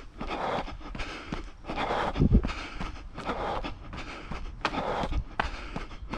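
A runner's footfalls on a path in a quick, even rhythm, with panting breaths coming every second or so.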